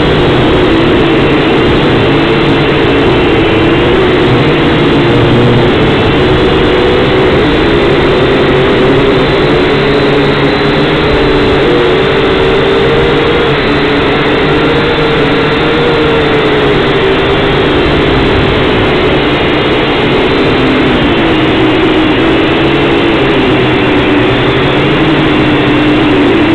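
Syma X5C-1 quadcopter's brushed motors and propellers whining loudly, picked up right beside them by its own onboard camera. The pitch wavers up and down as the throttle and flight corrections change.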